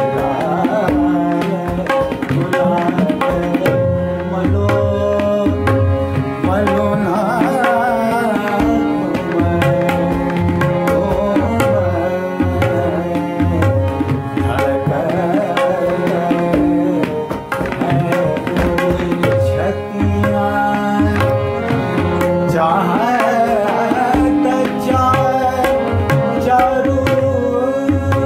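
Harmonium playing a melody of a classical Kumauni Holi in raag Jangla Kafi, with a tabla keeping a steady rhythm underneath.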